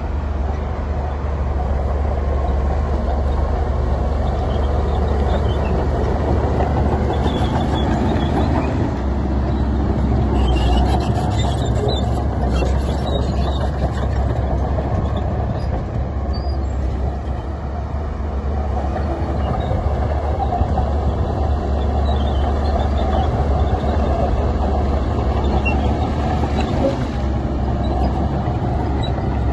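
Heavy diesel earthmoving machinery running steadily, with a strong low engine drone and a stretch of metallic clattering near the middle.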